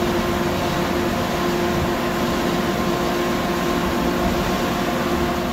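Steady mechanical noise: an even whooshing hiss with a constant low whine in it, from a fan or blower running.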